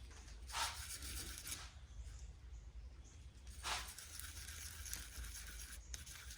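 Faint handling noise: a few brief rustling scrapes as grease is worked by hand into a hedge trimmer's gear housing.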